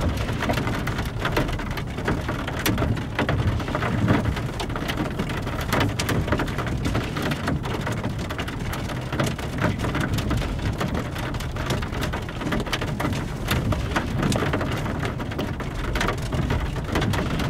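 Steady rain with many separate sharp drop hits, over a constant low rumble.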